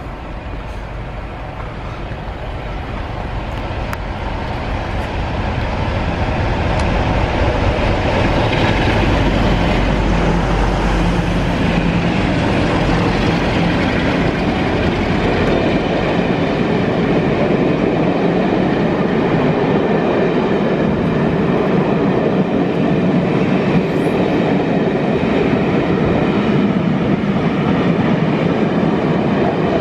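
Two Class 47 diesel locomotives running hard as they approach and pass, getting louder over the first several seconds with a heavy low engine tone. A rake of Pullman coaches follows with steady wheel-on-rail noise and clickety-clack.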